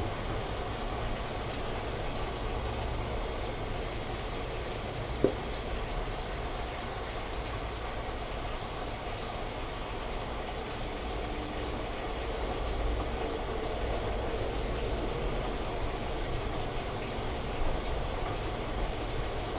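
Bosch front-loading washing machine filling with rinse water while the drum turns the laundry: a steady rush of water with a low motor hum, and one short knock about five seconds in.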